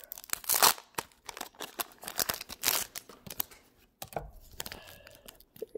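A foil Pokémon booster pack wrapper crinkling and being torn open by hand, in a series of sharp crackling rips, the loudest just under a second in.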